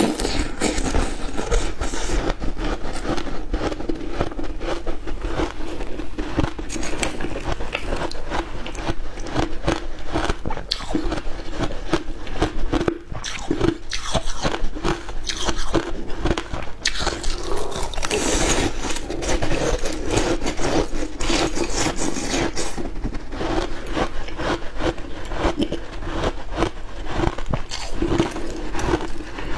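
Someone biting and crunching frozen matcha ice, with a steady stream of crackly crunches.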